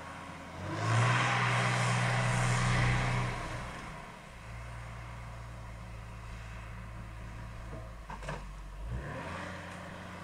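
Olive harvester's engine revving up loudly for about two and a half seconds, with a rushing rattle over it, then dropping back to a steady lower running. There are a few knocks about eight seconds in.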